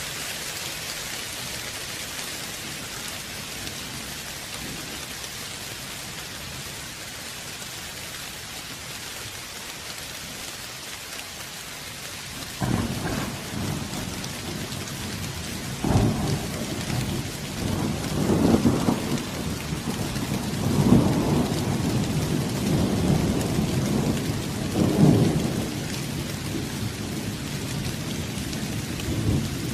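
Steady rain hissing, then a little under halfway through a sudden crack of thunder that rolls on as a long rumble, swelling several times before slowly fading.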